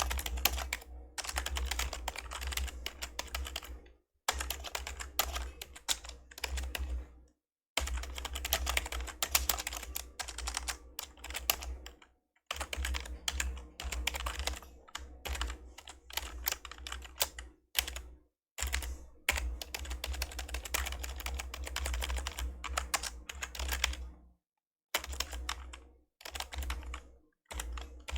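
Old membrane computer keyboard being typed on in fast runs of keystrokes, broken every few seconds by short pauses.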